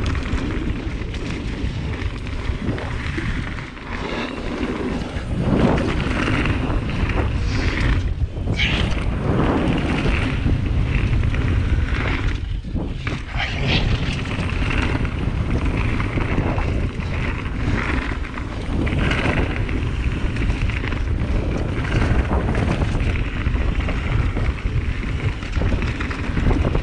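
Wind rushing over the microphone while a mountain bike rolls fast down a dirt trail: a steady rumble of tyres and frame, broken by irregular knocks and rattles from roots and rocks.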